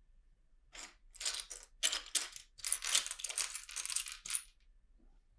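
Loose plastic LEGO pieces clattering as a hand rummages through a pile of them, a run of rattles starting about a second in and stopping near the end.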